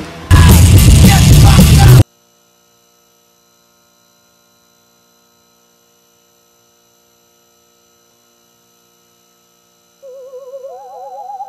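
A loud, distorted scream that cuts off suddenly about two seconds in, followed by near silence with a faint steady hum. Near the end, warbling theremin-like tones begin.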